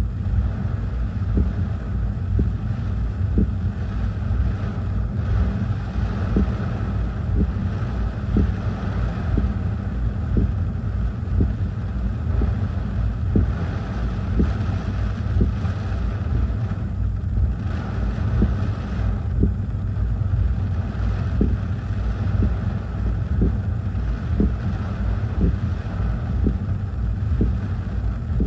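Gusty hurricane squall wind buffeting the microphone as a heavy, constantly fluctuating low rumble, over a hiss of wind-driven rain, with many short faint taps throughout.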